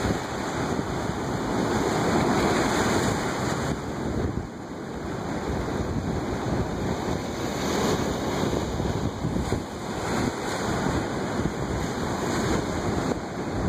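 Ocean surf breaking and washing over rocks at the shoreline: a continuous rushing of water that swells and eases as each wave comes in.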